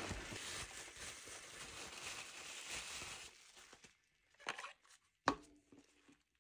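Plastic bubble wrap crinkling and rustling as it is pulled off a replacement battery pack, stopping after about three seconds. Then come two short knocks as the bare battery is handled.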